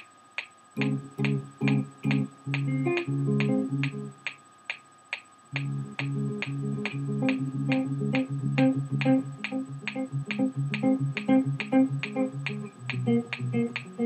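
Electric guitar played through an amplifier in short, separate notes, stopping for about a second and a half near the four-second mark, then resuming in a steady run of notes. Under it, a metronome ticks about twice a second throughout.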